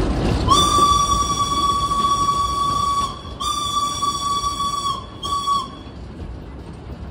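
Steam whistle of locomotive B 5112 sounding three blasts, two long and one short, a steady high tone. Under it runs the rumble of the moving train on the rails.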